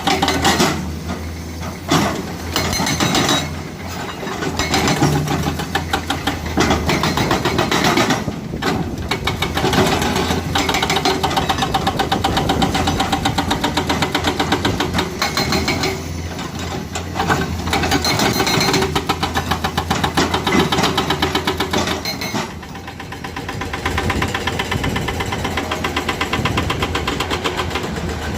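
Komatsu excavator's diesel engine running with a fast clattering rhythm, its level dipping and rising again several times as it works.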